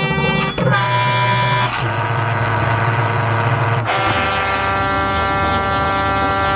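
Calliope pipes on a flame-throwing art car, played from a keytar, sounding loud sustained chords. The chords change abruptly three times, with a low drone under the first two.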